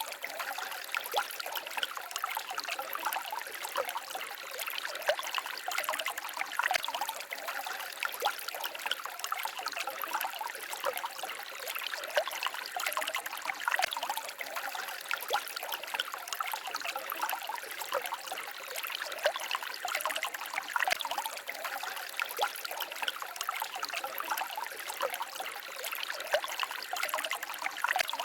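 Small forest stream babbling and trickling over stones, a steady flow of many small splashes and gurgles.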